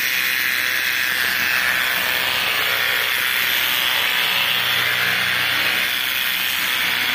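Electric pet hair clipper running steadily, a constant buzzing hiss with a faint low hum underneath.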